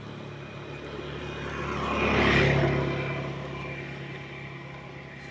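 A motor vehicle passing by on the road: its engine and tyre noise grow louder to a peak a little over two seconds in, then fade away.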